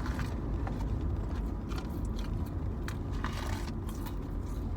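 Steady low road and engine rumble inside a moving car, with scattered small clicks and rustles.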